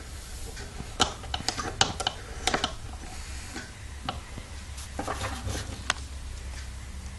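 Scattered light metallic clicks and ticks as a small ASP four-stroke model engine is turned over by hand to check its freshly set valve clearances, over a steady low hum.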